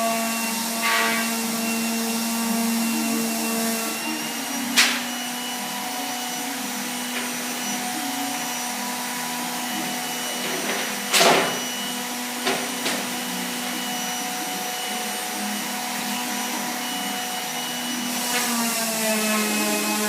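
Electric sander running steadily on wood, a constant motor hum broken by a few sharp knocks, the loudest about five and eleven seconds in.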